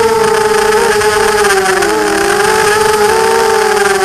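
EMAX MT2204-2300KV brushless motors spinning 5040 propellers on a 250-size quadcopter, a steady buzzing whine in flight, heard close from a camera on the frame. The pitch wavers and dips briefly about halfway through as the motor speed drops, then settles.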